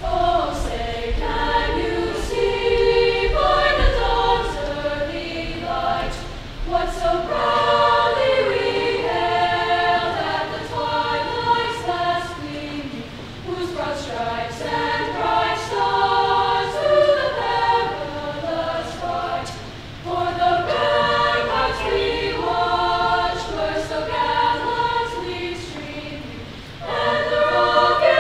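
A choir singing in several long phrases, with short pauses between them.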